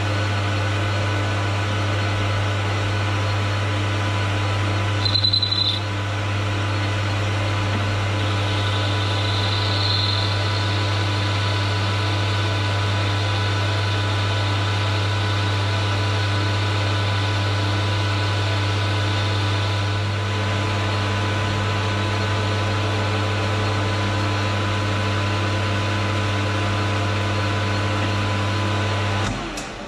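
AL960B hobby metal lathe running steadily, its motor and drive humming with several steady tones as it turns an aluminium flywheel blank under the cutting tool. A short higher tone comes in about five seconds in, and the machine cuts off just before the end.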